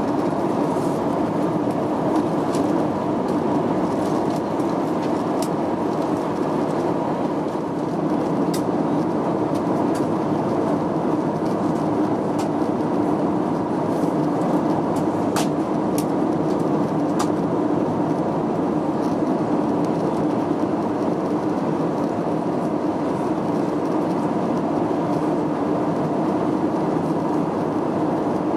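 Steady cabin noise of an airliner in flight: the even rush of engines and airflow, with a few faint ticks partway through.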